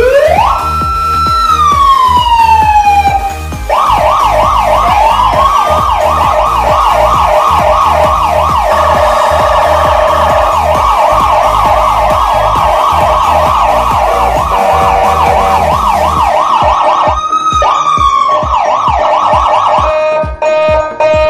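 Electronic siren: a wail that rises, holds and falls away over the first few seconds, then switches to a fast warbling yelp. About three-quarters of the way through it rises in one more brief wail, then the yelp resumes.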